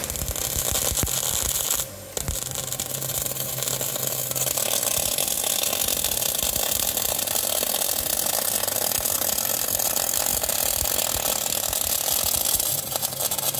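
Semi-automatic gas-shielded wire (MAG) welding arc laying a fillet weld bead in the flat position: a steady crackling hiss. The arc drops out briefly about two seconds in, then carries on.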